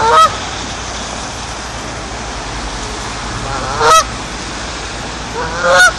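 Canada goose honking loudly at close range: three short honks, each rising in pitch, one at the start, one about four seconds in and one near the end.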